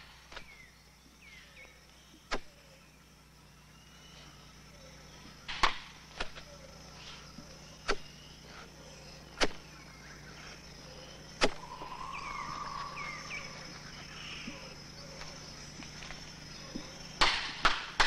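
Rainforest ambience: a steady high insect drone with short bird-like chirps, broken by several sharp knocks every second or two.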